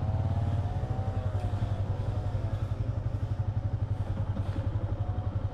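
Motorbike engine running steadily while riding, with a rapid, even throb.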